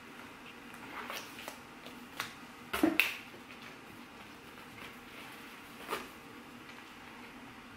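Sticker sheets being pulled from cardboard file boxes and handled: a few short paper rustles and taps, the loudest a quick pair about three seconds in.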